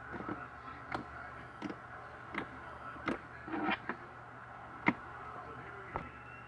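Slime being handled and poked, giving a series of short, sharp clicks and pops at irregular intervals, the loudest about five seconds in.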